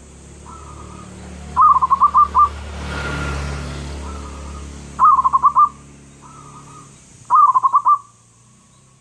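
Zebra dove (perkutut) cooing: three loud phrases of quick rolling notes, about two seconds in, at five seconds and near the end, each led by a softer, quieter phrase. A low rumble swells and fades in the middle.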